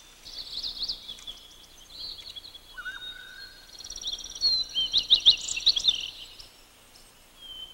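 Small birds chirping and twittering in quick, high-pitched trills, busiest about five seconds in, with one brief lower whistle about three seconds in.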